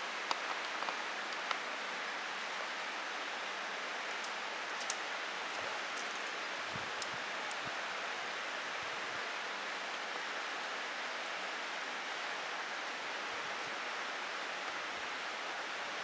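Steady, even outdoor rushing noise, with a few faint sharp clicks in the first seconds.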